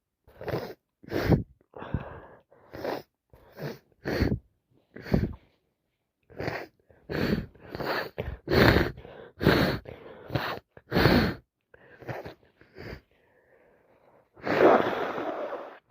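A woman sneezing over and over in a rapid fit: well over a dozen short, sudden sneezes, most less than a second apart, with a quieter gap, then one longer breathy blast near the end. The fit comes from a head cold that has turned into sinusitis.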